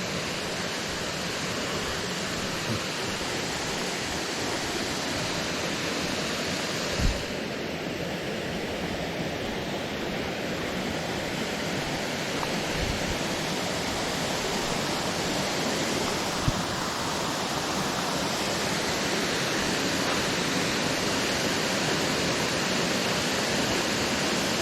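Waterfall on Stonewall Creek rushing steadily. A couple of brief low thumps sound, the first about seven seconds in.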